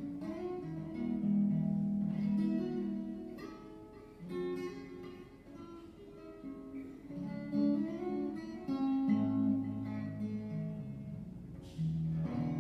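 Solo cutaway acoustic guitar, a melody of single picked notes over lower bass notes, played without singing.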